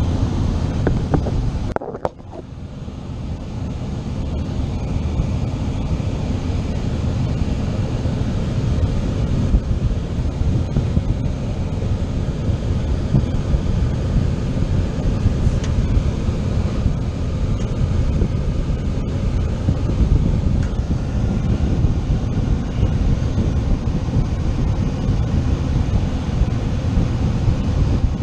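Running air-conditioning equipment giving off a loud, steady, low rushing noise like an air handler's blower or condenser fan, with a brief drop about two seconds in.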